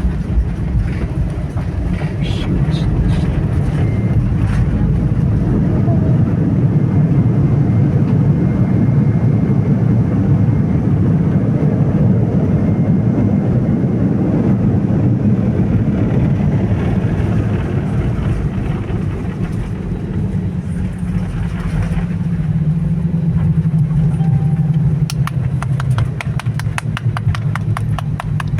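Airliner cabin noise during landing: a loud, steady low roar of the jet engines and rushing air that swells and then eases off. Near the end there is a quick run of clicks or rattles.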